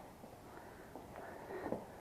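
Soft footsteps and scuffs on the floor of an underground stone-quarry passage, with a couple of louder scrapes about a second and a half in.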